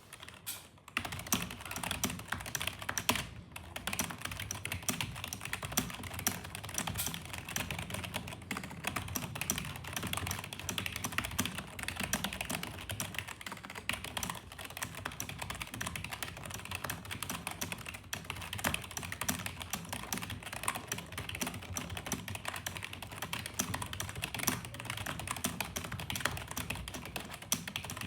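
Fast touch typing on a computer keyboard at about 115 words per minute: a dense, continuous stream of key clicks that starts about a second in, with one brief pause a couple of seconds later.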